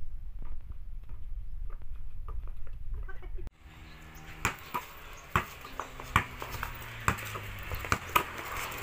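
Basketball bouncing on a concrete slab and slapping into hands during a passing drill: separate sharp thuds about once a second in the second half, over a low rumble in the first half.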